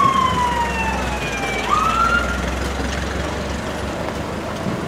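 Fire apparatus siren sliding slowly down in pitch, then a short rising whoop about two seconds in, over the low rumble of truck engines. The siren fades out after the whoop.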